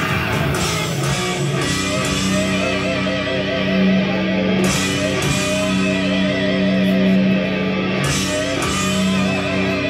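Guitar-led rock music playing for a stage act: held low notes under a wavering higher line, with bright hits about halfway through and again near the end.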